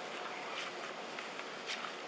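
Outdoor background ambience: a steady hiss with a few faint short chirps and brief light clicks or rustles, one sharper click near the end.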